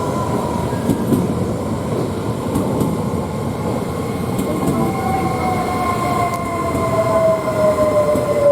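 A train running on the rails, a steady rumble with two whining tones that slowly fall in pitch; the lower whine comes in about five seconds in and grows louder toward the end.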